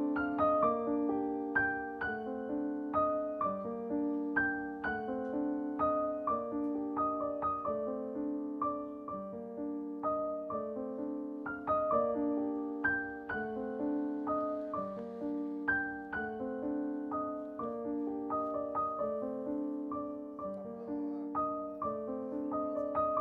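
Background piano music: a steady stream of picked-out notes over lower sustained notes.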